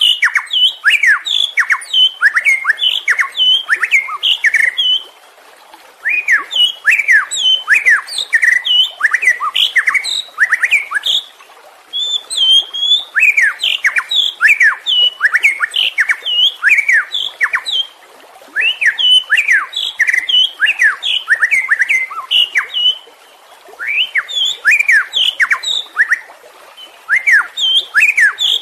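White-rumped shama (murai batu) singing an agitated, aggressive song: rapid runs of sweeping whistled notes in bouts of about five to six seconds, broken by brief pauses.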